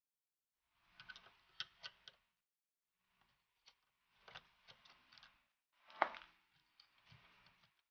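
Faint, irregular clicks, taps and short scrapes of a screwdriver and hands working at the hard drive and its cables inside an opened Megapro MP-9000 karaoke player, as the drive is disconnected again to reset the hung unit. A sharper click about six seconds in.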